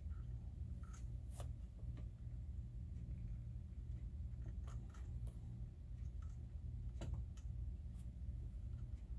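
Sparse light clicks and taps from handling the amplifier chassis and its parts, about half a dozen scattered through, over a steady low hum.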